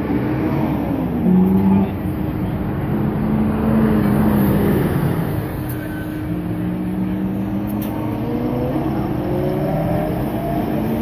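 Car engine accelerating and shifting in the street, its pitch climbing and dropping several times, over steady traffic noise. The last climb near the end is the highest.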